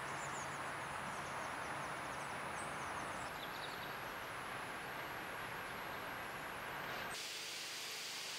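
Steady outdoor background noise with small birds chirping during the first few seconds. The background changes abruptly about seven seconds in.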